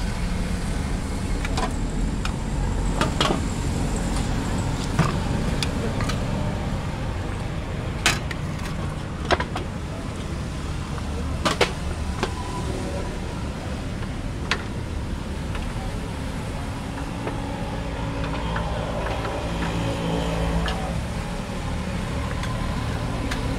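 Roadside street ambience: a steady rumble of passing traffic, with sharp clinks or knocks every few seconds and faint voices about three-quarters of the way through.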